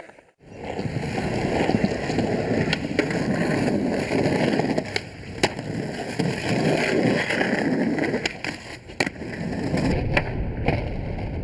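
Skateboard wheels rolling over concrete pavement with a steady rumble, broken by a few sharp clacks of the board.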